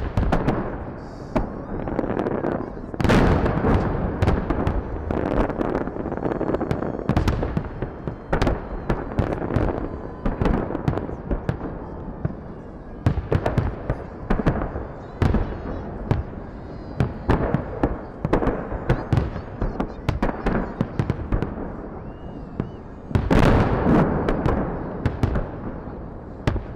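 Fireworks salute: a continuous barrage of booms and sharp cracks from aerial shells bursting, with denser, louder volleys about three seconds in and again near the end.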